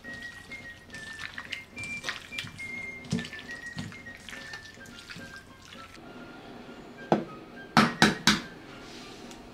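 Wet squishing of hands kneading raw chicken thigh pieces in marinade in a stainless steel bowl, over background music with a simple whistle-like melody. About seven seconds in, four sharp clicks: these are the loudest sounds.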